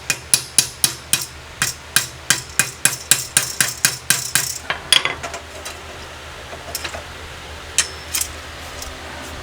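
A hammer striking metal in a quick series of sharp, ringing blows, about four a second for some five seconds, then a few scattered taps.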